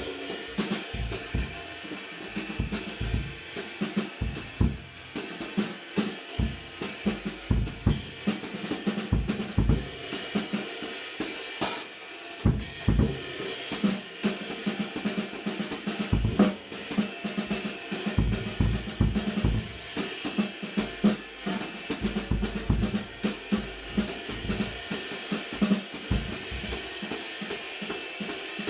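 A drum kit groove is played around a 20-inch riveted Zildjian Old K Istanbul ride cymbal, struck with small-bead sticks. The ride's continuous rivet-sizzled wash sits over hi-hat, snare and irregular bass drum hits.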